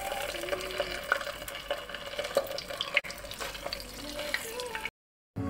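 Raw chicken pieces frying in oil just after going into the pot, a steady sizzle with scattered small crackles. The sound cuts off abruptly near the end.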